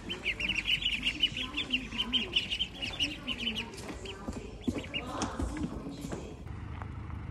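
A pen of ducklings peeping: a fast, unbroken run of short high peeps, several a second, that thins out to scattered peeps after about three and a half seconds.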